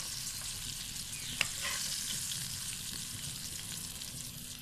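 Double-coated chicken pieces deep-frying in hot ghee in a metal wok: a steady sizzle as a spatula stirs them, with one sharp click about one and a half seconds in.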